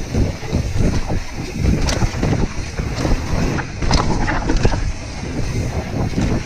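Mountain bike descending a dirt forest trail: wind buffeting the camera microphone over the rumble of tyres on dirt, with knocks and rattles from the bike over bumps, sharpest about two and four seconds in.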